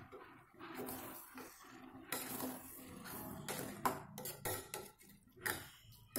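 Metal spoon stirring marinated chicken pieces in an aluminium pressure cooker, with irregular scrapes and clinks against the pot.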